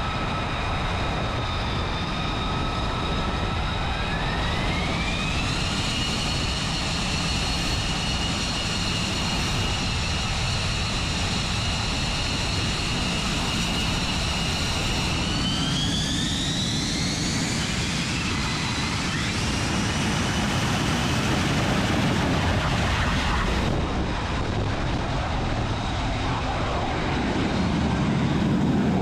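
F-35B's Pratt & Whitney F135 jet engine running on deck with a high turbine whine over a broad rumble. The whine steps up in pitch twice as the engine spools up, then gives way to a louder, steady jet roar near the end.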